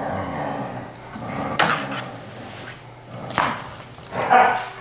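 Hands handling a lamp's cord, plug and inline switch, with rustling and a few sharp plastic clicks, about a second and a half in and again about three and a half seconds in.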